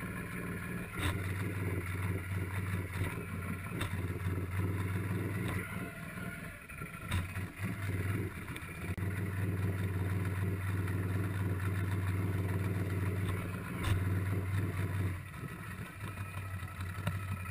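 An ATV engine running steadily while the machine sits partly in the water. Its hum drops away briefly a couple of times and is crossed by a few sharp knocks.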